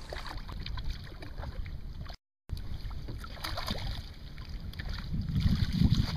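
Water lapping and splashing against a small fishing boat's hull, with wind buffeting the microphone that grows heavier near the end.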